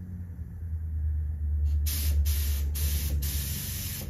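Conventional (non-HVLP) air spray gun hissing as the trigger is pulled, spraying primer in four short bursts from about two seconds in, the last one longer. Underneath, the low steady hum of a small air compressor running.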